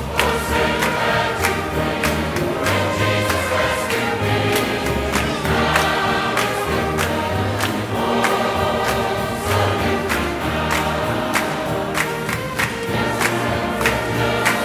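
Church choir singing with instrumental accompaniment: a full sung chord over low bass notes, with a steady beat of sharp hits about twice a second.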